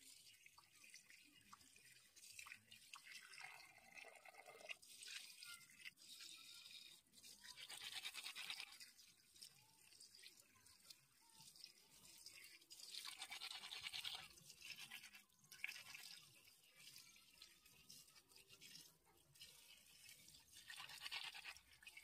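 Faint scratchy rustling of dry, fibrous chive roots rubbed and pulled apart by hand, coming in several short bursts with small crackles between them.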